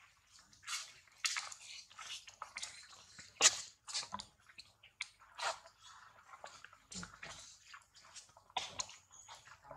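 Irregular crunching and crackling clicks, with one louder snap about three and a half seconds in.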